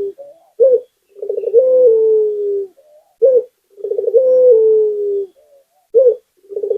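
Puter dove (Barbary dove) cooing in a repeating phrase: a stuttered start runs into a long, slightly falling coo, followed by a short clipped coo. The pattern comes round about every two and a half seconds, giving about three phrases.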